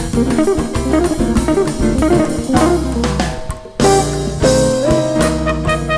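Brazilian jazz band recording: guitar lines over bass and drum kit. There is a short break about three and a half seconds in, then the band comes back with fuller held notes.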